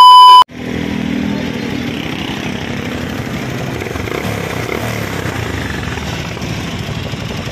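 A loud test-tone beep of about half a second, then a Bajaj Pulsar (Rouser) 180 DTS-i single-cylinder engine idling steadily. It is running noisily with strong vibration, which the mechanic suspects comes from the balancer not being re-timed after a clutch lining change.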